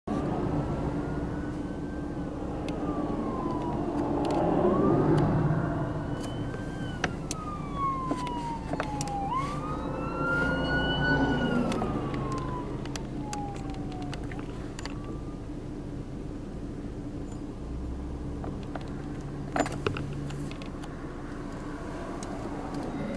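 Emergency vehicle siren wailing in slow rising and falling sweeps over a steady low engine hum; the siren fades out after about fifteen seconds. Two sharp clicks come near the end.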